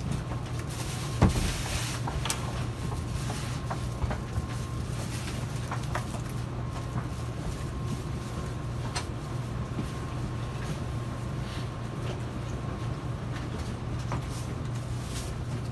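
Steady low hum inside an N700S Shinkansen car, with scattered clicks and knocks and a sharp thump about a second in.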